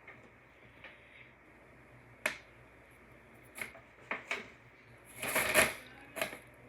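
A bag crinkling and rustling as a cat shifts about inside it: a few short crackles, then a longer, louder rustle about five seconds in and one more crackle just before the end.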